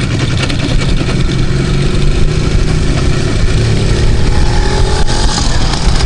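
IZh motorcycle's two-stroke engine running steadily under way on a rough dirt track, its pitch rising a little about four seconds in.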